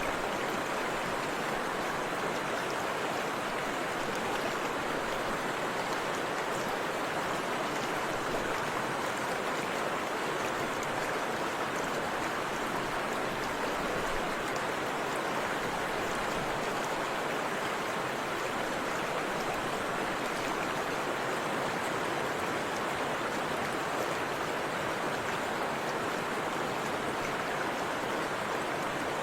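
Forest river flowing over a waterfall: a steady, unbroken rush of water.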